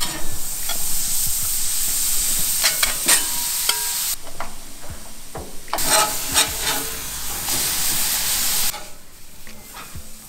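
Raw burger patties sizzling on the hot griddle plate of a gas grill, in two spells of a few seconds each that break off abruptly. A metal spatula clicks now and then.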